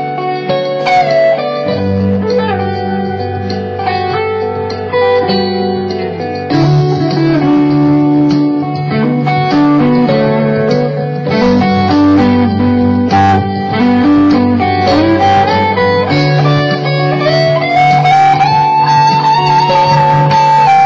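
Gibson Les Paul Studio electric guitar playing a bluesy lead line, with string bends rising in pitch, over a low accompaniment whose notes change every five seconds or so.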